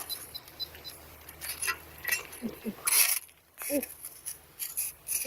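Short sharp clinks and knocks of small hard objects, several a second, with a louder one about three seconds in, and a few brief murmured voice sounds.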